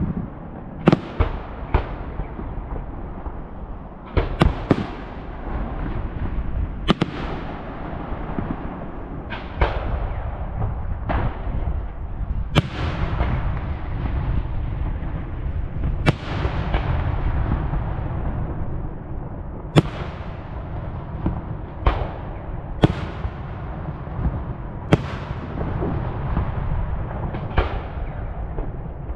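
Aerial fireworks shells bursting in the sky: about fifteen sharp bangs at irregular intervals of one to four seconds, sometimes two in quick succession, each trailing off in a long echo.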